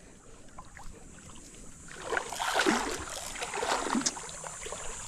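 Shallow sea water sloshing and splashing, quiet at first and growing louder from about two seconds in.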